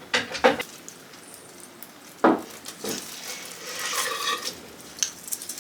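Dishes and decorations handled on a table: a few light clinks, a louder knock about two seconds in, then a rustling scrape around four seconds in and more small clicks near the end.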